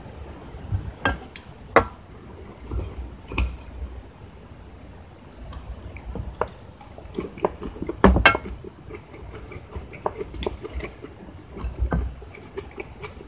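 Utensils clicking and scraping against ceramic bowls while eating, in irregular taps with a louder cluster of knocks about eight seconds in.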